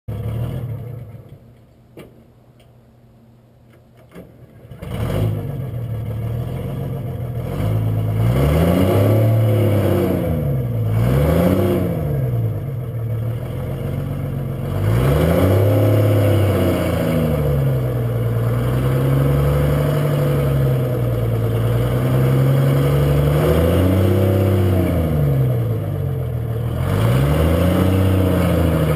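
Detroit Diesel 6-71 two-stroke diesel in a 1955 GMC TDH-4512 bus firing up about five seconds in, after a couple of clicks. It idles and is revved up and back down about five times, exhausting through a bare 4-inch elbow in the manifold with no exhaust system fitted.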